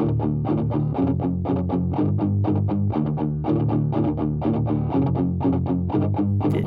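Music: a guitar picking a fast, even run of notes, about five or six a second, over a steady bass line.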